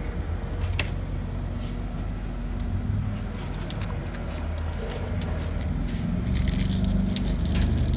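Steady low hum of a CEM LabWave 9000 microwave moisture analyzer running its drying cycle, with scattered clicks. About six seconds in, a louder clattering, rustling handling noise starts.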